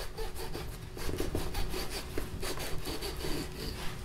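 A kitchen knife slicing around a ripe Hass avocado, the blade scraping through the rind and around the pit in a quick series of small strokes.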